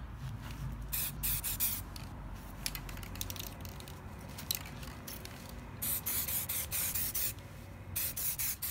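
Aerosol spray-paint can hissing in a series of short bursts, the longest about six seconds in and another near the end.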